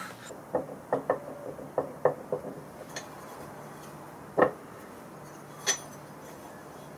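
Light metal clinks and taps from handling the steel frame and threaded rods of a granite millstone mill: a quick run of small ringing clinks in the first two seconds, then two sharper knocks further on.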